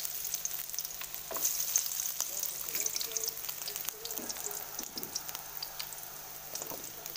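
Sliced shallots and garlic sizzling and crackling in hot oil in a wok, with a wooden spatula stirring and scraping the pan now and then.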